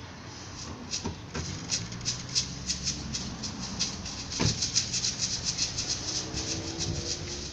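Batucada percussion playing a fast, even rhythm of high rattling strokes, fuller from about halfway through, over a low steady hum.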